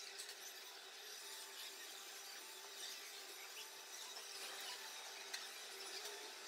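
Faint, irregular clicking of laptop keys being typed on, over a steady low background hum.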